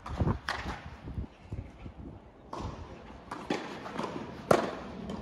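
Tennis rally: racket strings hitting the ball several times, the loudest and sharpest hit about four and a half seconds in, with shoes scuffing on a sand-dressed court between shots.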